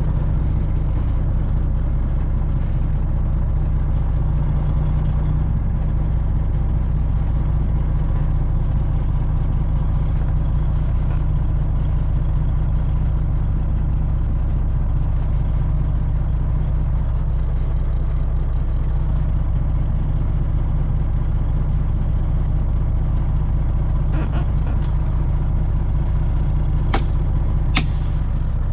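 A heavy engine running steadily at a constant speed, with two sharp clicks near the end.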